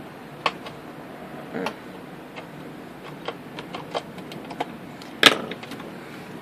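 Scattered light clicks and taps from handling a small screwdriver and the plastic case of an old D-Link gateway on a plywood workbench, with one sharper knock about five seconds in.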